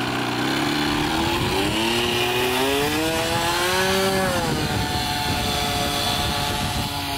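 Nitro glow engine of an RC model plane running at high rev, its pitch climbing steadily as the throttle opens, then dropping back about four and a half seconds in and holding steady.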